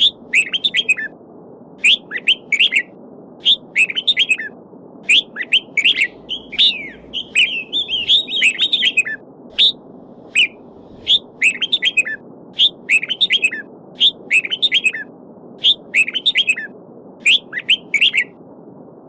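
Small songbirds chirping, short high calls and brief trills about once or twice a second with a longer warbling phrase partway through, over the steady babbling of a stream.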